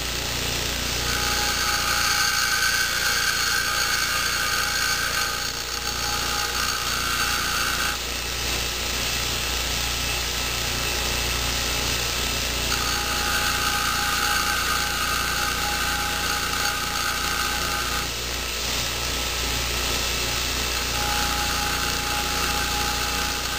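Bench grinder motor running steadily while the metal end of an antenna pigtail connector is ground against the wheel in three bouts of grinding, each several seconds long, with only the motor hum in between.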